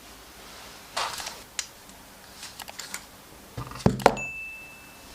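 Scattered sharp clicks and knocks of hard plastic and metal parts being handled, the two loudest close together about four seconds in, followed by a thin steady high tone lasting about a second.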